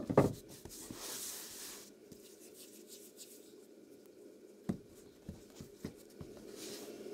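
A sharp knock, then a brief rustling hiss about a second in, a second knock past the middle and a few soft clicks, over a low steady hum.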